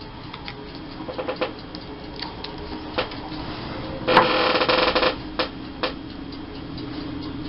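Glue being put on a small paper cut-out on a craft table: scattered light taps and clicks of paper and tools, with a short rough rubbing scrape about four seconds in.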